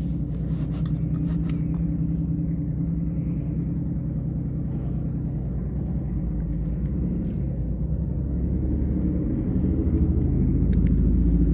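A motor vehicle's engine running steadily nearby, growing louder about ten seconds in.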